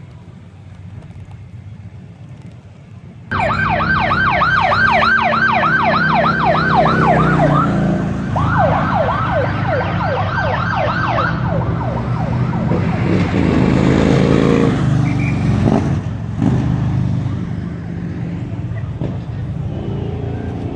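Police escort siren in a fast yelp, about four rising sweeps a second. It starts suddenly about three seconds in and stops about eleven seconds in, over the engines of passing vehicles.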